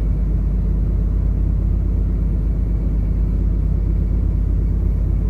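Steady low rumble aboard a ship moving slowly under its own engine, with a faint hiss above it.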